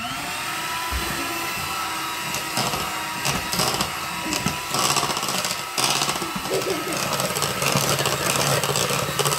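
Electric hand mixer running at a steady speed, its motor whining as the beaters churn through cookie dough of butter, sugar and a freshly added egg, with the beaters knocking against the bowl now and then.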